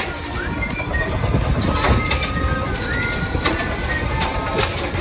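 Compressed-natural-gas automated side-loader garbage truck running at the curb while its hydraulic arm lifts a recycling cart and tips it into the hopper, with a few sharp clanks.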